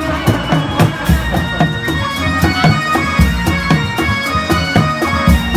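Indramayu reog street ensemble playing: drums beating a fast, steady rhythm under a sustained, piercing reed-wind melody.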